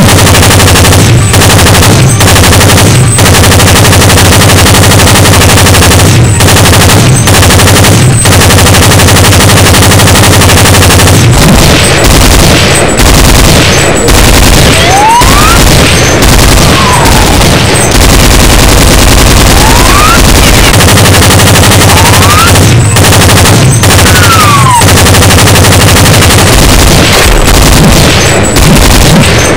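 Rapid machine-gun fire sound effect, loud and unbroken, with a few short whistling glides like passing bullets in the middle.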